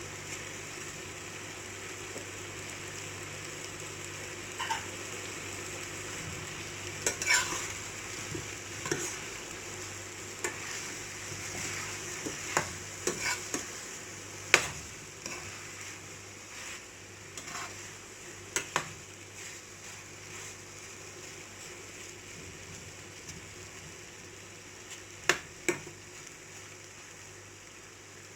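Chicken and potato pieces sizzling in a pan of spiced masala while a spoon stirs them, with scattered knocks and scrapes of the spoon against the pan, the loudest about halfway through.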